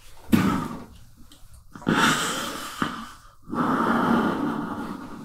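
A man breathing hard and panicked into a stage microphone: a short gasp, then two long, heavy, wheezing breaths.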